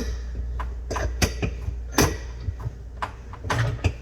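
Angle stop puller and old shut-off valve fittings being handled: an irregular run of sharp metal clicks and knocks over a steady low hum.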